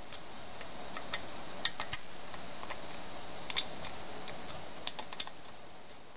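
Light, irregular metallic clicks and ticks of a hand screwdriver turning and seating the ignition coil's mounting screw on a small Briggs & Stratton engine, over a steady background hiss.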